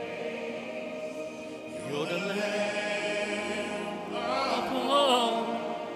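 Worship singing: voices holding long sustained notes, swelling about two seconds in, with one voice rising in a wavering vibrato near the end.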